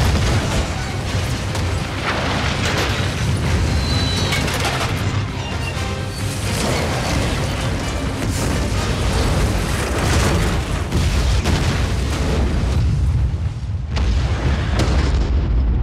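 Film sound effects of a cargo plane exploding and burning on a runway: repeated explosions over a continuous deep rumble, with a music score underneath. Near the end the higher crackle drops away and the low rumble stays.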